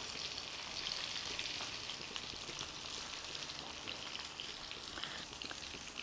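Breadcrumb-coated meat and potato tikka skewers deep-frying in a pan of hot oil: a steady, fairly quiet sizzle with small crackles scattered through.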